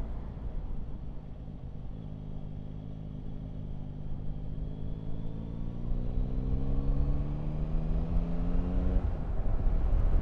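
Yamaha Tracer 9 GT's three-cylinder engine pulling under throttle, its note rising steadily for several seconds and then easing off near the end, over a low wind rumble.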